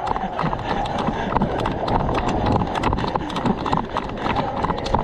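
A quick, irregular run of hard clicks and knocks, several a second, over a busy background.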